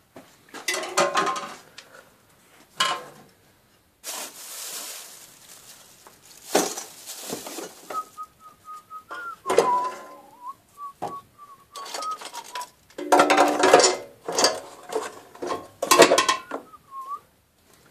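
Metal clinking and clattering as tools and a metal motorcycle fuel tank are handled on a workbench. From about the middle to near the end, someone whistles a short wandering tune over the clatter.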